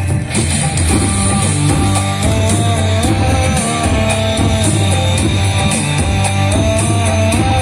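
Loud rock-style music with guitar, drums and heavy bass, playing through an F&D F380X speaker system.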